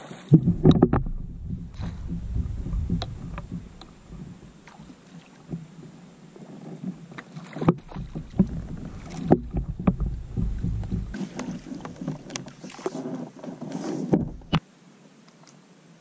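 A hooked fish thrashing and splashing at the water's surface beside a kayak, mixed with sharp knocks and clicks of tackle and gear against the hull and low rumble. The sound swells and fades several times, then stops abruptly shortly before the end.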